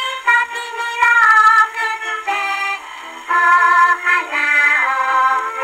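A 78 rpm Victor record of a Japanese children's song playing on a Victrola VV-50 wind-up acoustic gramophone with a soft-tone steel needle: singing over a small band accompaniment, with no deep bass.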